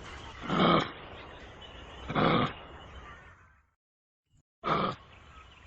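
Kangaroo giving three short, rough calls, each well under half a second, spaced about two seconds apart over a faint background hiss.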